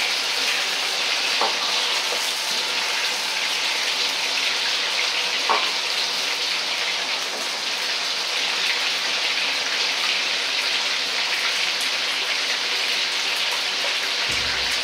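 Diced chicken and eggplant deep-frying in hot oil in a wok: a steady sizzle of bubbling oil, the oil-blanching stage of a stir-fry.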